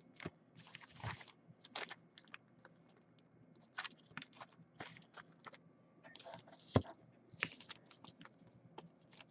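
Irregular light clicks and plastic crinkles from trading cards in thin plastic sleeves and rigid plastic toploaders being handled and set down on a desk.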